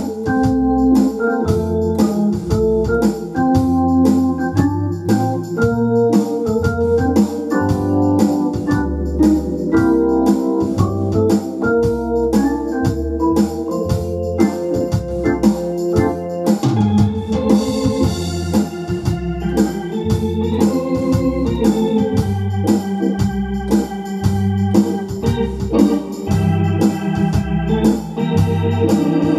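Hammond M-44 Exceed organ playing an easy-listening fox trot: melody and chords over a pulsing bass, with a steady beat from the rhythm accompaniment. About seventeen seconds in, the music moves up in pitch and a cymbal-like hiss comes in briefly.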